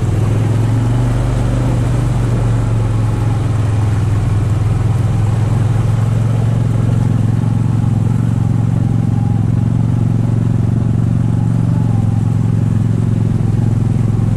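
ATV engine running at a steady low speed with an even, low-pitched hum as the four-wheeler wades through creek water.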